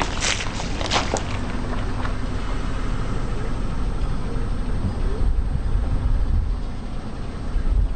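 A car rolling slowly with a steady low rumble, with a few sharp crackling snaps in the first second or so as objects crunch under a tyre.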